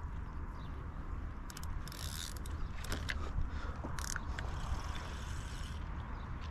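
Fishing reel being wound, its mechanism giving irregular clicks and short scrapes over a steady low rumble.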